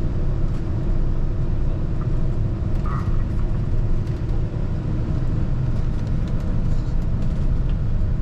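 Steady low rumble of a moving road vehicle's engine and road noise.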